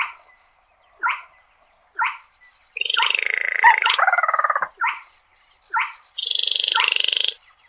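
Baillon's crake calling: short downward notes repeated about once a second, broken twice by a longer dry, frog-like rattling trill, the first about two seconds long and the second shorter, near the end.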